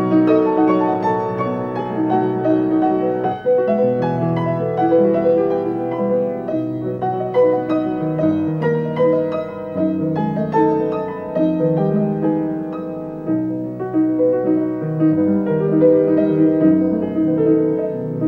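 Grand piano playing a flowing classical passage alone, without voice.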